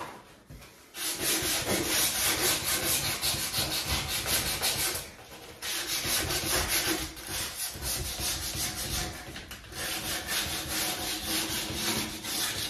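Sandpaper rubbed by hand over the wooden top of an old cabinet in rapid back-and-forth strokes, pausing briefly about five seconds in; the top is being sanded back to remove marks before staining and varnishing.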